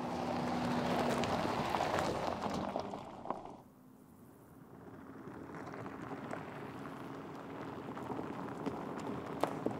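Mercedes GLC SUV driving over a gravel dirt track: tyres crunching on loose stones with a faint steady hum. The sound cuts off abruptly about three and a half seconds in, then builds slowly again as the SUV comes closer along the trail.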